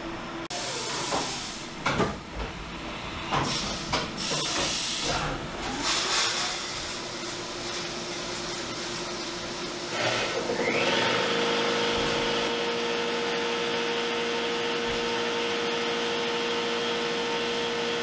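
CNC milling machine at work with flood coolant. Irregular clunks and bursts of noise in the first half; then, about ten seconds in, the spindle rises in pitch and runs at a steady whine under the hiss of coolant spraying over the workpiece.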